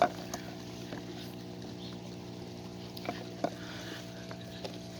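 A steady low hum, with a few light knocks and clicks scattered through it.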